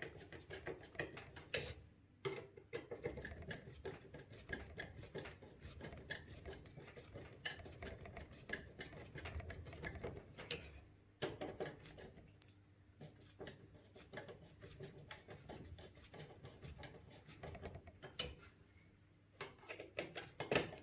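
Faint, irregular small clicks and light scraping of the AIO pump block's mounting screws being tightened down over the CPU, with a few sharper clicks and brief pauses between turns.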